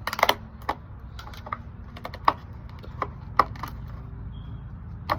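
Irregular sharp clicks and taps, about a dozen, from plastic toy parts and packaging being handled and pried apart.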